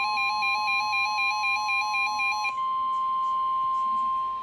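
NOAA Weather Radio receiver sounding a tornado warning alert: the steady single-pitch warning alarm tone, overlaid with the receiver's warbling two-tone alarm beeps. The warbling stops about halfway through, leaving the steady tone alone, which drops in level near the end.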